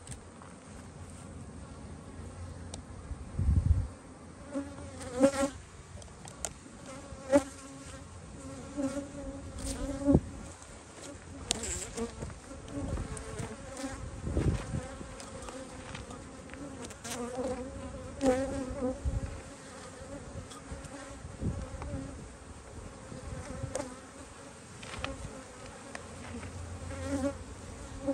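Honeybees buzzing at a hive entrance: a steady hum of many wings, with louder buzzes now and then as single bees fly close past the microphone. A few low rumbles come in between.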